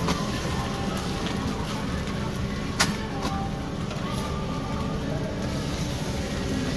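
Metal scrapers working egg-covered cold noodle sheets on a flat-top griddle, with one sharp clack of metal on the griddle about three seconds in, over a steady low rumble.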